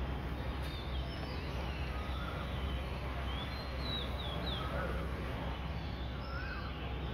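Small birds chirping now and then, short high calls scattered through, over a steady low background hum.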